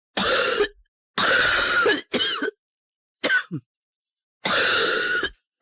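A child's strong, harsh, rumbling cough: a run of loud coughs, each under a second, with short silent gaps between them. This kind of cough is typical of bronchitis in a child.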